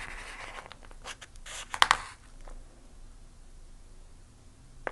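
Wooden chopsticks scraping and tapping against rice and the round bento box as food is picked up: a run of small scratches and clicks in the first two seconds, loudest just before two seconds in, then one sharp tap at the very end.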